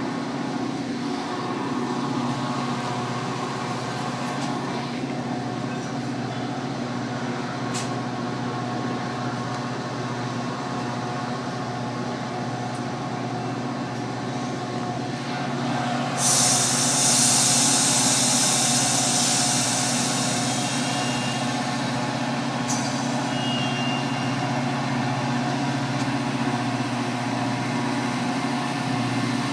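Metra diesel commuter train standing at the platform, running with a steady hum. About halfway through, a loud burst of compressed air starts hissing from the train's air system, fading over a few seconds, followed by a second short hiss.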